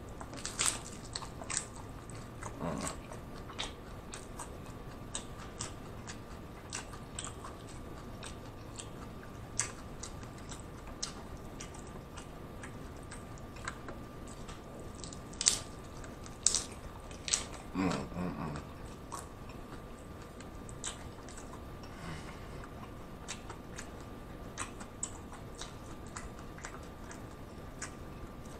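Close-miked biting, crunching and chewing of hard-shell corn tacos: scattered sharp crunches and mouth clicks, with a denser run of crunching a little past the middle, over a faint steady tone.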